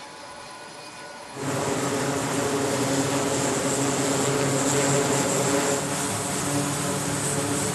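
Turboprop engines of a carrier aircraft running on the flight deck: a steady propeller drone under a high turbine whine. It cuts in suddenly about a second and a half in, over fainter deck noise.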